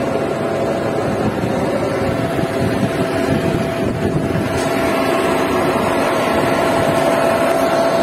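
Putzmeister concrete pump truck running: a steady machine drone with a steady whine that grows stronger about halfway through.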